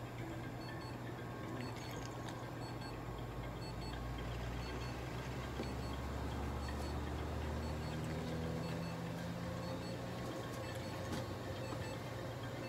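Steady low electrical hum of equipment, swelling a little midway, with faint short high beeps repeating at even spacing.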